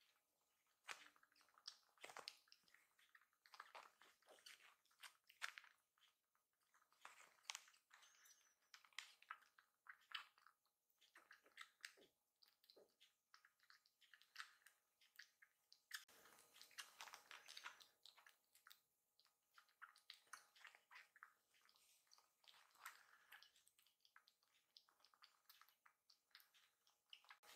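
Faint wet sucking and smacking of a kitten suckling milk from a small nursing bottle, a quick irregular run of little clicks.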